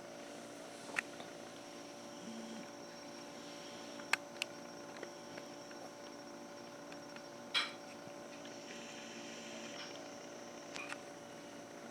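Steady machine or electrical hum made of several constant tones, with a few sharp clicks about one, four and seven and a half seconds in.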